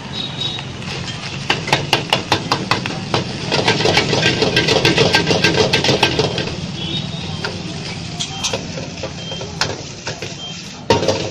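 Rapid clacking of cooking utensils, several sharp strikes a second in bursts, over a steady low hum and voices.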